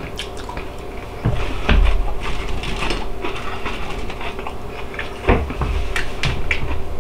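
A person chewing a bite of breaded, air-fried onion ring, with scattered crisp crunches and mouth sounds. Two heavier low thumps come about a second in and again about five seconds in.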